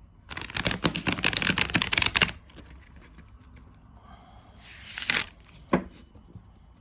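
A deck of large tarot cards being shuffled: a rapid flutter of cards lasting about two seconds, then a brief swish and a single tap near the end.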